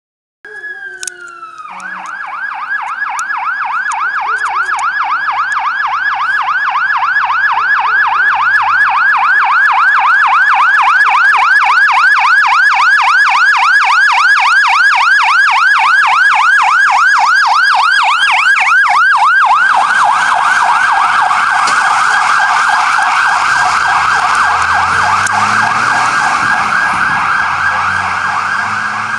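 Emergency siren on a MAN TGL 12.240 fire truck carrying an SHD-25 aerial platform, answering an alarm call. The siren yelps rapidly up and down in pitch and grows louder as the truck approaches. About two-thirds of the way through it switches to a faster, denser pattern, and the truck's engine becomes audible under it as it passes close by.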